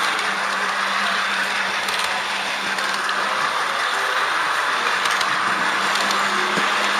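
Steady running noise of an H0 model train heard from a camera riding on it: the whir of the small motor and gears with the wheels rolling on the track, over a constant low hum.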